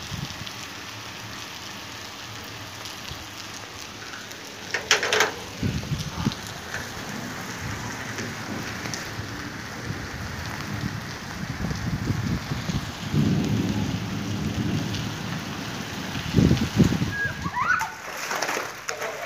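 Heavy rain falling steadily, with low rumbles of thunder rolling through the middle and a sharp crackle about five seconds in.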